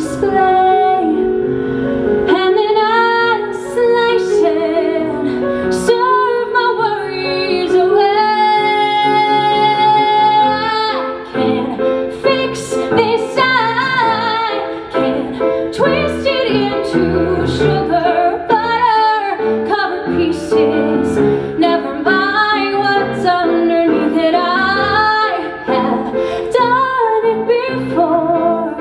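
A woman singing a Broadway musical theatre song with live piano accompaniment; about eight seconds in she holds one long note for about three seconds.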